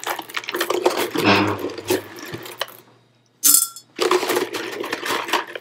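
Small white pebbles clicking and clattering as a hand scoops them from a jar and drops them into a glass terrarium jar. The clicks come in two spells with a short pause between, and one loud clatter against the glass, with a brief ring, falls in that pause.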